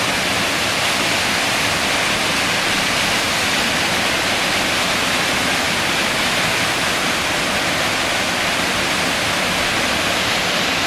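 Shepperd's Dell waterfall: a steady, unbroken rush of falling water.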